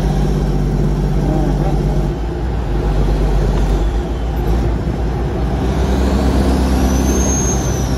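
Caterpillar 3406E diesel in a Kenworth W900L, heard from inside the cab while the truck drives down the highway. The steady engine note breaks up about two seconds in and settles again near six seconds. A thin high whistle rises and falls near the end.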